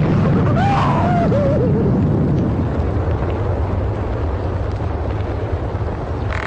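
Deep, loud rumble of an explosion slowly dying away, with a wavering higher sound over it in the first two seconds.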